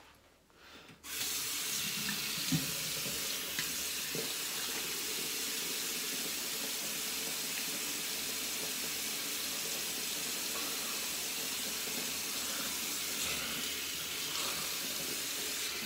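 Bathroom tap running steadily into a sink, turned on about a second in, with a few faint knocks.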